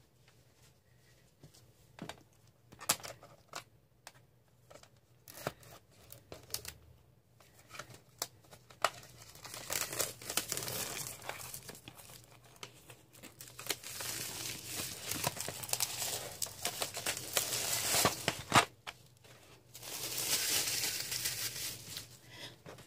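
Clear plastic film wrapping being torn open and peeled off a tray of colored pencils in a metal tin. A few scattered clicks and rustles come first, then steady crinkling and tearing that is loudest in the second half.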